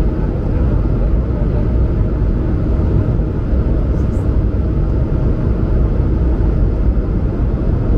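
Steady low rumble inside the passenger cabin of an Airbus A220-100 in its climb: its Pratt & Whitney PW1500G geared turbofans at climb power and air rushing past the fuselage.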